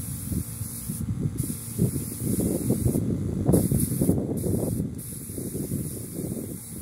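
Compressed-air spray gun hissing as it sprays sanding sealer onto plywood, the spray cutting off briefly about four times as the trigger is let go, over a low, uneven rumble.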